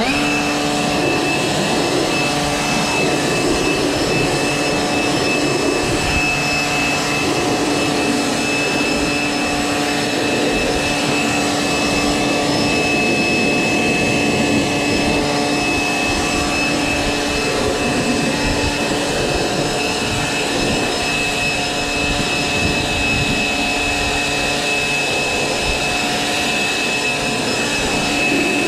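Handheld leaf blower spinning up at the start and then running steadily at full blast with a high whine, drying a freshly washed zero-turn mower.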